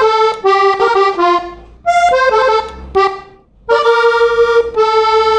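Hohner three-row diatonic button accordion playing a vallenato melody on the bellows' opening stroke: quick runs of short notes, a brief break a little over three seconds in, then a long held note under further melody notes.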